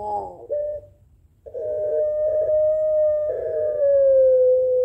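Puter pelung dove (a long-voiced ringneck dove variety) calling: a short warbling coo, a brief pause, then a long drawn-out coo held for about three seconds and slowly falling in pitch. It is the long call these doves give to answer and challenge a rival.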